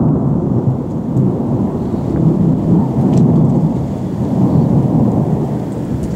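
Thunder rolling in a long, continuous rumble that swells and eases in waves.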